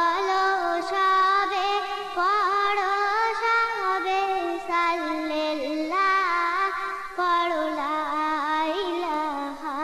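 A woman singing a Bangla gojol (Islamic devotional song) into a microphone, holding long notes that slide and turn in pitch.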